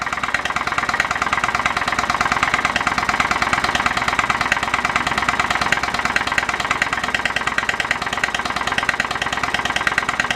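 A PMR 1B1 1880s-pattern steam drilling engine, a 1-inch bore double-acting horizontal model steam engine, running steadily at speed. Its exhaust gives a fast, even beat of puffs, vented straight into an open catch can rather than returned to the boiler.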